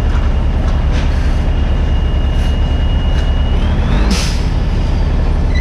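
Mini excavator's diesel engine running steadily with a low throb, over a thin high whine that rises in pitch about three and a half seconds in, followed by a short hiss-like burst about four seconds in.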